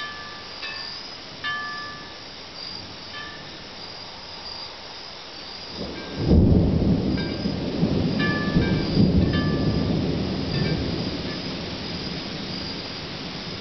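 Thunder during a night thunderstorm: about six seconds in, a loud rumble breaks in suddenly, swells and slowly dies away, over steady heavy rain. Scattered high ringing chime notes sound through the rain before and after the thunder.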